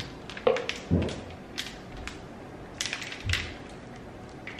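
Plastic packet of frozen açaí smoothie mix being handled and opened: irregular crinkling and sharp clicks, with a couple of dull knocks.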